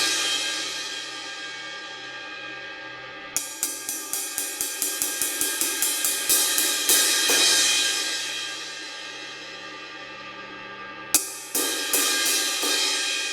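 Zildjian 18-inch K Dark Medium Thin crash cymbal struck with a stick and left ringing, its edge freshly repaired after a small crack. About three seconds in comes a fast run of strikes, about four a second, that builds the wash. It then rings down, and a few more crashes come near the end.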